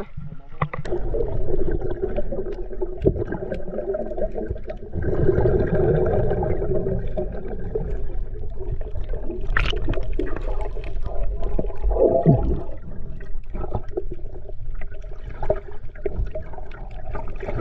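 Water heard underwater through the camera: a continuous muffled rumbling and gurgling, with scattered small clicks and a brief falling tone about twelve seconds in.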